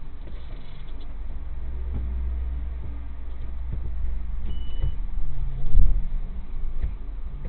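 Car engine running low as the car creeps slowly forward, a steady low rumble with a few knocks and a louder thump about six seconds in. A brief high beep sounds shortly before the thump.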